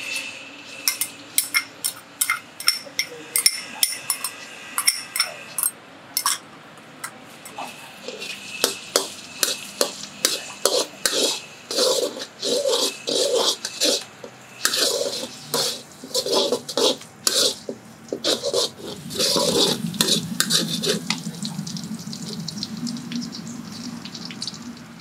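Metal wok spatula clinking and scraping, first tapping chopped shallots out of a glass bowl and then stirring them in oil around a wok, with quick clatters of metal on metal. Near the end a steady light sizzle rises under the stirring as the shallots start to fry.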